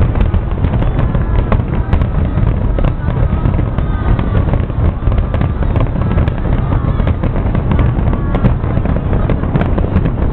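Fireworks display at full intensity: a dense, unbroken barrage of booming shell bursts and crackling reports over a continuous low rumble.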